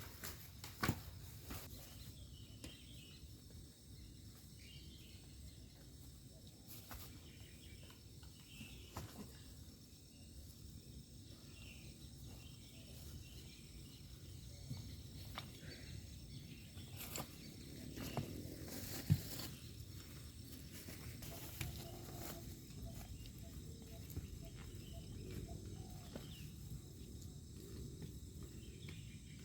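Night-time outdoor ambience: insects, crickets among them, chirring steadily in a high even drone over a low background rumble, with a few scattered sharp clicks and knocks.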